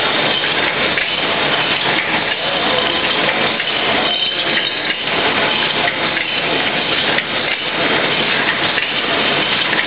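Servo-driven automatic multicolour screen printing machine running: a steady, dense mechanical clatter.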